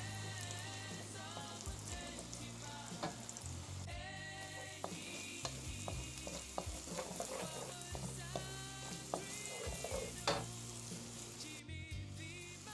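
Eggs and onion sizzling in hot cooking oil in a pan while a utensil stirs them, with scattered clicks and scrapes against the pan, over background music.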